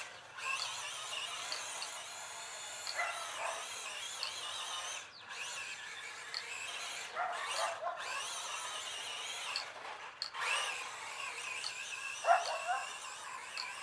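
Brushed electric motor and gear train of a 1:12-scale GPTOYS S912 RC truck whining as it is driven, the pitch rising and falling as the throttle is worked, with brief cut-outs several times when the throttle is released.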